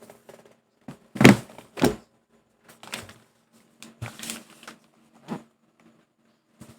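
Monokei x Jujutsu Kaisen mechanical keyboard being typed on: irregular keystroke clicks in small clusters, with two louder strikes about a second in.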